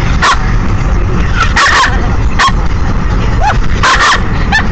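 Pomeranian barking in short, high-pitched yaps, about half a dozen at irregular intervals, one of them longer about four seconds in. Underneath is the steady low rumble of a moving car.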